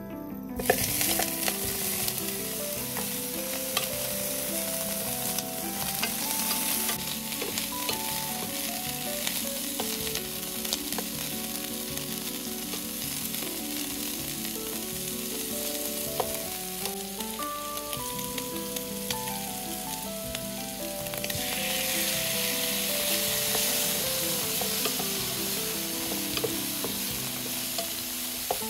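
Food sizzling as it fries in a pan and is stirred, with scattered clicks of the utensil against the pan. The sizzle grows louder about 21 seconds in, then eases back a few seconds later.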